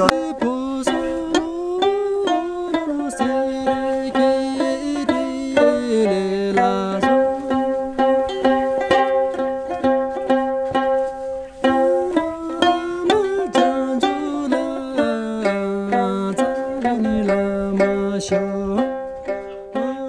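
A plucked string instrument playing a lively melody, its notes picked in quick succession.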